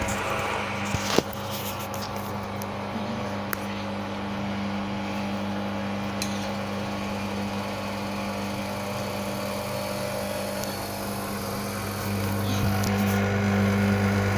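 Drain pump of an LG WD-80155NUP front-loading washing machine humming steadily, getting noisier about twelve seconds in, with a single click about a second in.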